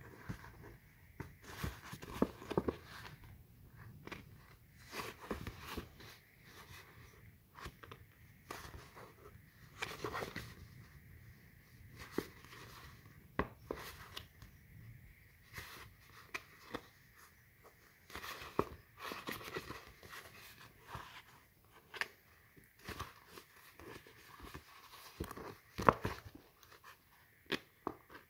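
Thin scored polypropylene sheet being bent and pinched by hand along its score lines: irregular crinkles and crisp clicks as each crease is made, one sharper click near the end.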